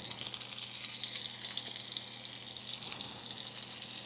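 Chicken breasts frying in browning butter in a skillet: a steady sizzle with fine crackling, a little louder from the start.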